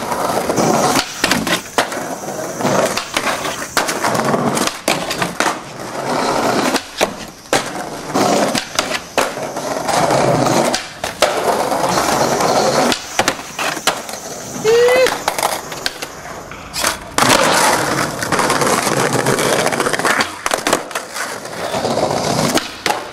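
Skateboard wheels rolling over tiled paving stones, with repeated sharp clacks of the tail popping and the board landing as tricks are tried.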